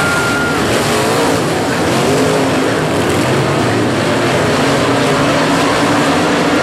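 Dirt modified race car engines running hard at racing speed, their pitch rising and falling.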